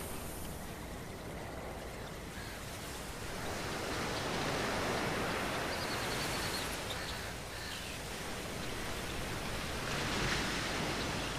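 Steady rushing noise that swells about three seconds in, with a few faint high chirps in the middle.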